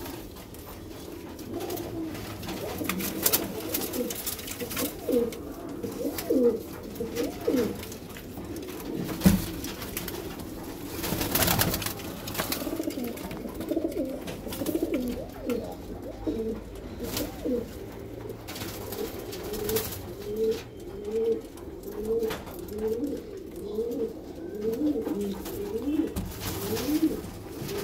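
A flock of domestic Madrasi pigeons cooing in a loft, many short, overlapping calls repeating all through. A few brief clattering noises stand out around the middle.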